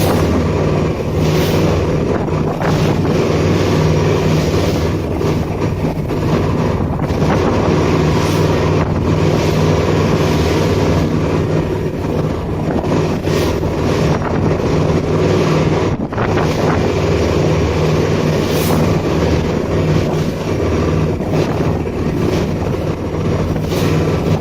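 Boat engine running at a steady, unchanging pitch, with wind buffeting the microphone.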